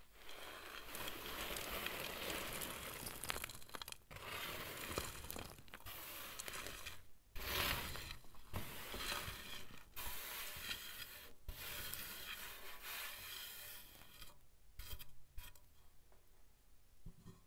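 Fingers crushing and crumbling dry, powdery pink and green clumps: a steady gritty crunching that comes in long passes broken by several short pauses.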